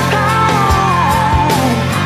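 Blues-rock song with full band: drums and steady bass under a lead line that slides down in pitch, between sung lines.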